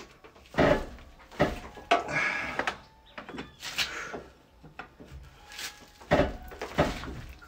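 Irregular metal knocks and clunks of a lug wrench working on the wheel bolts of a car's front wheel, the bolts being given a final hard tightening. The bolts are already tight.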